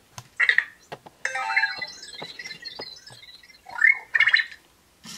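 Anki Vector robot answering its wake word with a run of electronic chirps, beeps and warbling robot noises in several short bursts, with a few small clicks in between.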